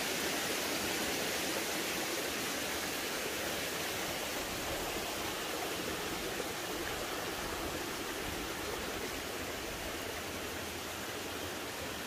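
Steady rushing of running water, easing slightly over the seconds.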